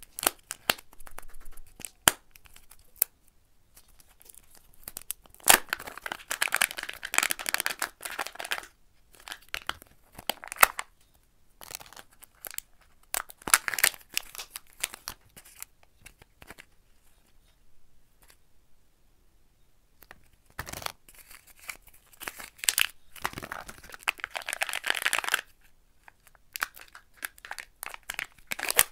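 Kinder Joy egg packaging being opened by hand: a few sharp plastic clicks as the egg shell is handled, then several bursts of tearing and crinkling of the thin plastic toy wrapper and the foil seal, with quiet pauses in between.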